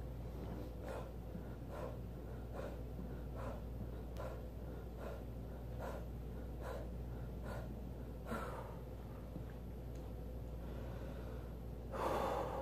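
A man's hard, short breaths in time with his push-ups, about one every 0.8 seconds, ten or so in a row; then a pause and a louder, longer gasping breath near the end.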